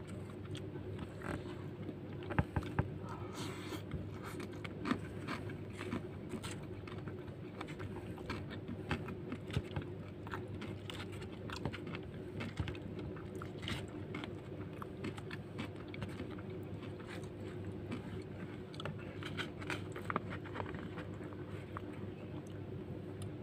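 Close-up eating sounds: chewing and biting, with a plastic spoon scraping and clicking against rice and the paper food wrapper in irregular strokes. A steady low hum runs underneath.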